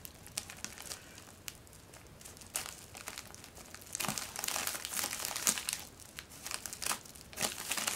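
Plastic mailing bag crinkling and rustling as it is handled and opened, in irregular bursts. It is faint for the first couple of seconds and grows busier and louder from about four seconds in.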